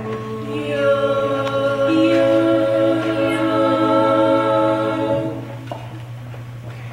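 A group of young women singing together in close harmony, holding sustained chords without instruments. The singing stops about five seconds in, leaving quieter room sound over a steady low hum.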